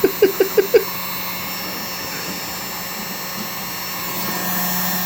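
Heat gun running steadily, a blower's even rush of air with a low motor hum, as it softens 3D-printed PLA strands. In the first second a person gives a quick chuckle of about five short bursts.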